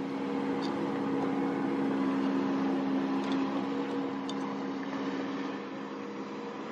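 A steady motor hum with a low drone, a little louder for the first five seconds and easing off near the end.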